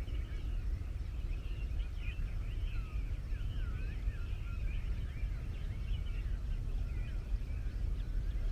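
Outdoor birdsong: many birds calling and singing at once, a dense chatter of short chirps and sweeping whistles, over a steady low rumble.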